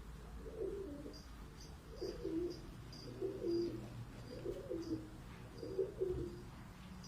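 Domestic pigeon cooing, five warbling coos about a second apart, with faint high chirps of small birds in the background.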